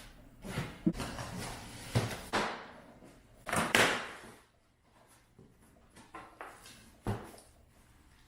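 Cardboard shipping boxes being handled and shifted: several knocks and scrapes, the loudest about three and a half seconds in, and another sharp knock near seven seconds.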